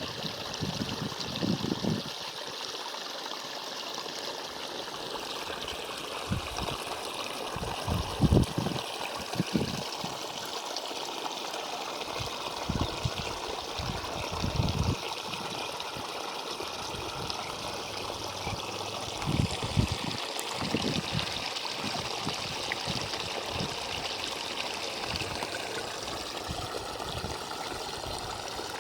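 Water running steadily in a stream or canal with a constant trickling rush, broken by a scattering of short low thumps.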